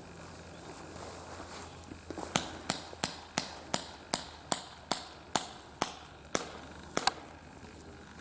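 Airsoft gun fired in rapid single shots, about a dozen sharp cracks a little under three a second, the last two close together.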